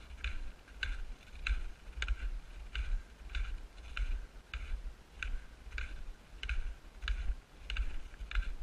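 Footsteps on a packed snow trail at a steady walking pace, a bit under two steps a second. Each step is a short crunch with a dull thud under it.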